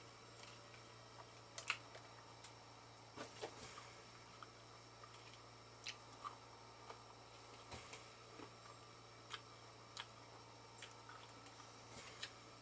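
Faint, scattered mouth clicks and chewing sounds from eating chicken wings, over a low steady hum; otherwise near silence.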